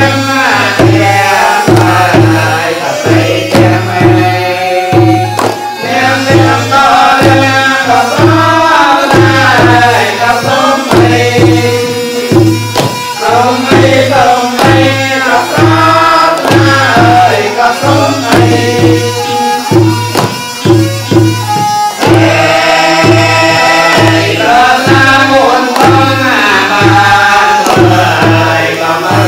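Traditional folk music, with a hand drum keeping a steady beat about twice a second under a winding melody.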